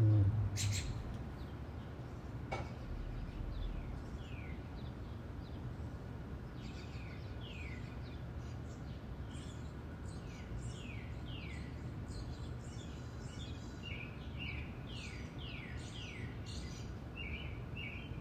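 Small birds chirping: short, high calls that slide downward, sparse at first and coming thick and fast through the second half, over a steady low background rumble. A sharp click and a low thump come right at the start.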